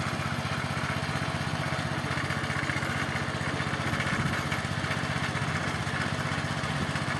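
Small air-cooled petrol engine of a walk-behind motor cultivator running steadily with an even, rapid pulse as the machine tills soil.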